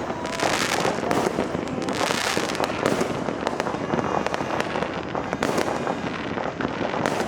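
Dense, continuous crackle and popping of many fireworks and firecrackers going off at once, with no single bang standing out above the rest.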